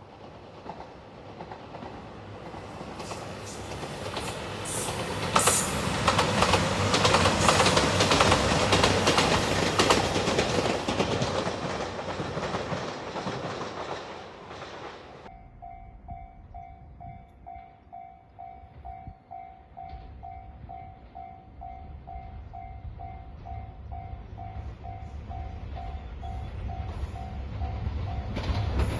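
A three-car diesel limited express train passing over a level crossing: its running and wheel noise swells to a peak and fades over about fifteen seconds. After an abrupt cut, the level crossing's warning bell rings evenly about twice a second over a low rumble that slowly builds, and the bell stops just before the end.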